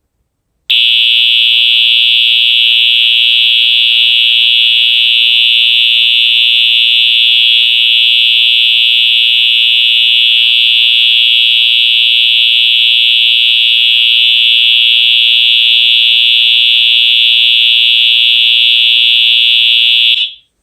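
Wheelock EH-EL1 electronic fire alarm horn sounding on a continuous pattern: one steady, unbroken high-pitched tone, pretty loud. It starts about a second in and cuts off suddenly near the end.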